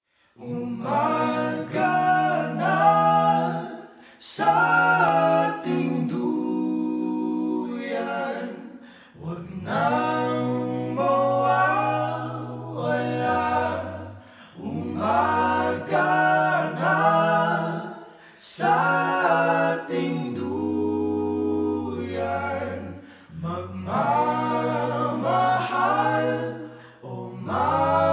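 Unaccompanied group vocal harmony: several voices singing chords in phrases of about four to five seconds each, with a low note held under each phrase and short breaks between them.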